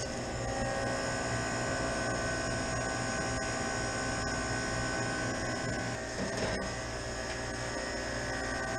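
Refrigeration condensing unit running steadily, its compressor and condenser fans making a constant hum and drone, with a few faint clicks about halfway through.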